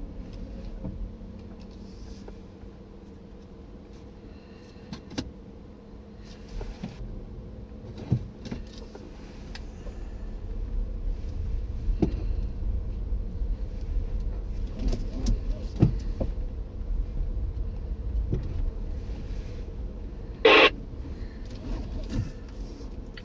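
Road and tyre noise inside an electric car (Nissan Leaf) driving a country lane, growing louder about halfway through and easing near the end as the car slows to a stop, with small knocks and a faint steady hum. A short loud beep sounds about twenty seconds in.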